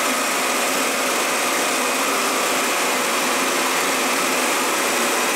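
Wagner Control Pro 250M airless paint sprayer running steadily, its gun spraying into a bucket as clean water is pushed through the hose to flush out the paint.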